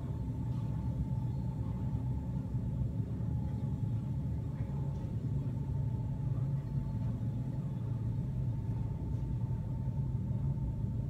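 Steady low rumble of a building's ventilation system, with a faint steady whine above it.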